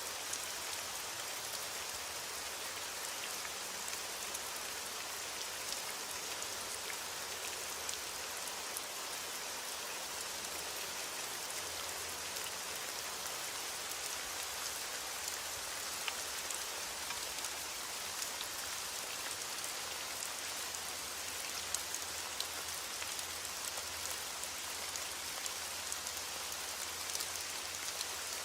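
Rain falling steadily: an even hiss with scattered single drop ticks, and no thunder.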